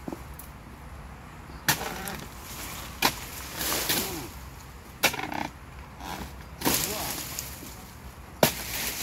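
A steel dodos chisel on a long pole chopping into the bases of oil palm fronds: five sharp strikes about a second and a half apart, each followed by a short rustle.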